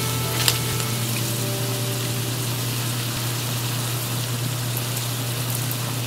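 Ground pork, onion and corn sizzling steadily in a frying pan, over a steady low hum. A light tap comes about half a second in.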